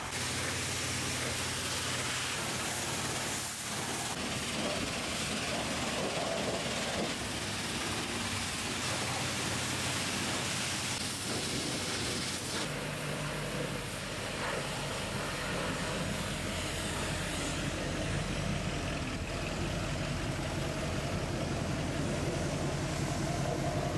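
Car-wash pressure washer spraying down a pickup truck's flatbed: a steady hiss of high-pressure water over the constant hum of the wash's pump motor. The hiss thins out about halfway through while the hum carries on.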